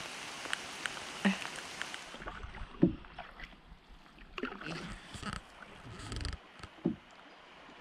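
Steady hiss of rain for about two seconds, cutting off abruptly; then a canoe being paddled, with irregular knocks of the paddle against the hull and short splashes of paddle strokes in the water.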